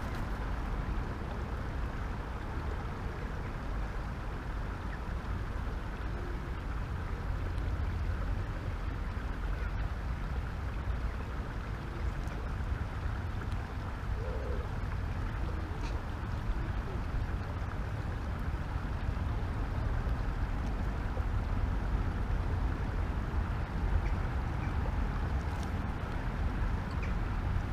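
Wind on the microphone: a steady low rumbling noise.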